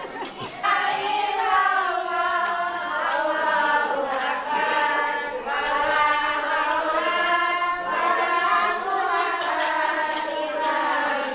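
A group of voices singing a chant-like melody together in unison, starting about half a second in.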